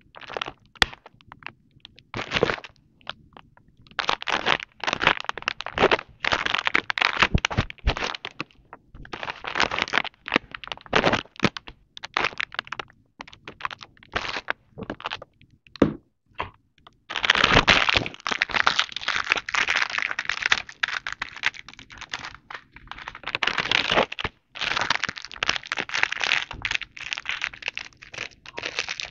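Plastic packaging crinkling and crackling in irregular bursts as hands handle items, with sharp clicks from a small plastic lotion bottle.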